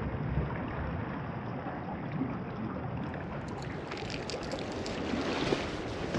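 Outdoor shoreline ambience: wind on the microphone and sea water washing against rocks, with a few faint clicks and small splashes in the second half.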